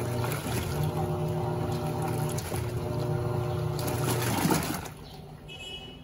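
Electrolux LAC17 top-load washing machine agitating: a steady motor hum with water and clothes sloshing in the drum. It stops about five seconds in as the cycle pauses to soak.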